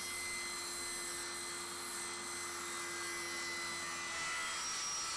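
Table saw running steadily, a hum under a high whine, as a strip of quarter-inch masonite hardboard is fed through the blade.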